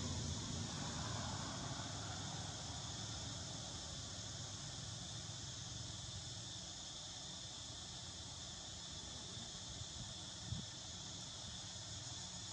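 Steady, even high-pitched drone of insects calling outdoors, with a low rumble underneath and a single short knock about ten and a half seconds in.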